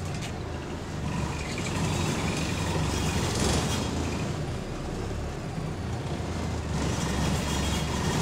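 Double-decker bus under way, heard from the upper deck: the engine runs with interior parts rattling loudly to its vibration. The noise swells about three seconds in and again near the end.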